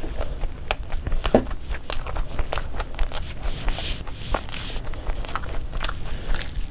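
A person chewing a mouthful of soft-bun chicken burger and biting into it again, a run of irregular small clicks, smacks and crunches.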